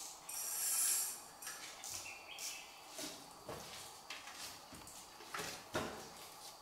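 A big hooked fish splashing at the water's surface in a series of short bursts as it is played on a fishing rod.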